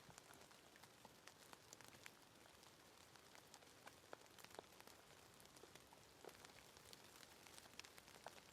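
Faint, steady rain: a soft hiss of falling rain with many separate drops ticking at irregular moments.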